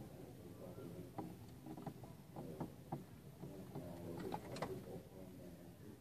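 Irregular sharp taps of a small bird's beak and wings striking a car's side mirror as it attacks its own reflection, with a quicker cluster of taps about four seconds in, heard from inside the car.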